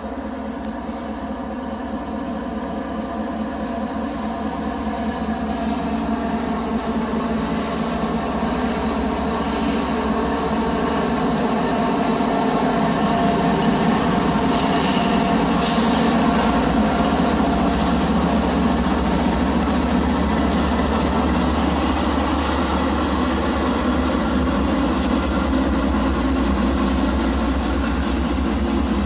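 Two GE diesel-electric freight locomotives, an ES44AH and an AC44CW, running steadily as they approach and go by, louder over the first half and then holding loud.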